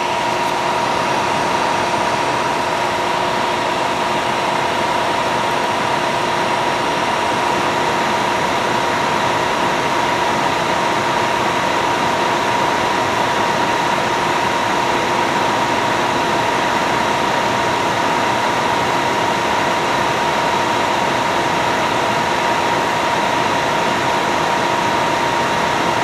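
Thermostat-controlled cooling fans in a radio power amplifier running steadily, switched on by the relay board: an even rush of air with a steady thin whine.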